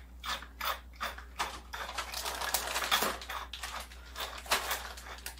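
Twist pepper mill grinding peppercorns into a bowl: a quick, irregular run of dry crunching clicks with each turn.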